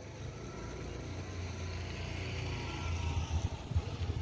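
An engine running steadily with a low rumble, with wind buffeting the microphone near the end.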